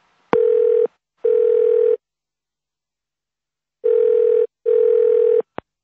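Telephone ringing tone heard from the caller's end, two double rings ('ring-ring', pause, 'ring-ring'), each ring a steady electronic tone with a slight pulse. A sharp click near the end as the line is picked up.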